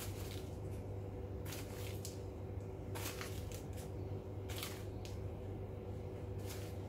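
A clear plastic seed packet rustling and crinkling in the hand as seeds are sprinkled, in short bursts about every second and a half, over a steady low hum.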